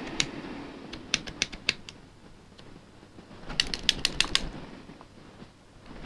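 Brass puzzle padlock shaken in the hands: bursts of quick metallic clicks and rattles, one about a second in and a denser one around four seconds in. It is a check for loose parts, and nothing is heard rattling around inside the lock.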